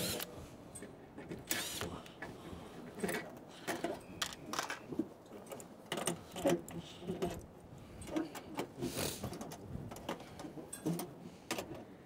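Scattered clicks, knocks and small metallic rattles of hands and tools working on an air-conditioner outdoor unit, opening its side panel, with a couple of brief scraping rustles.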